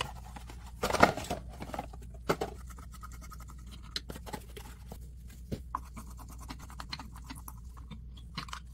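Scratching and clicking of LED bulbs being handled and screwed into ceramic lamp sockets, with a louder handling noise about a second in.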